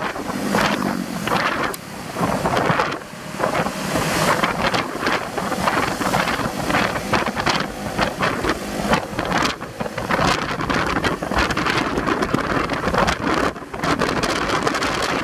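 Wind buffeting the microphone over a loud, steady rushing noise.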